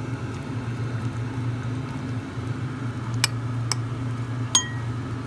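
A spoon clinks against a plate three times in the second half, the last clink ringing briefly, over a steady low hum.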